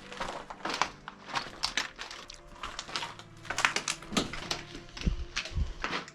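Footsteps crunching over debris: an irregular run of sharp crunches and clicks, with a couple of heavier low thuds near the end.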